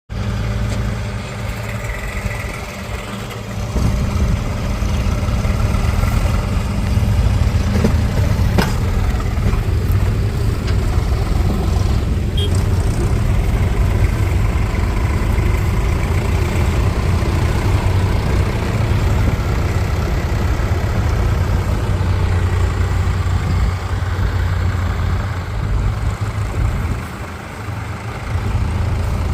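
Diesel engines of heavy farm and earthmoving machinery, tractors and a backhoe loader, running steadily with a low rumble. The sound gets louder about four seconds in.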